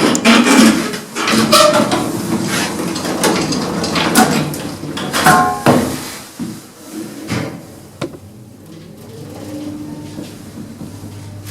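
Old 1960s Marriott Scott passenger lift working: a run of clanks and knocks from its doors and machinery over the first six seconds, then a quieter steady hum as it runs.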